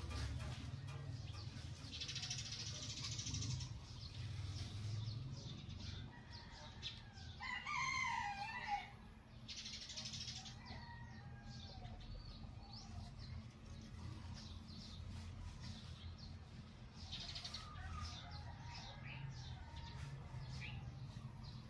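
A rooster crows once, about seven and a half seconds in, the loudest sound here. Around it, mulberry branches and leaves rustle in short spells as they are pulled down, with small bird chirps here and there.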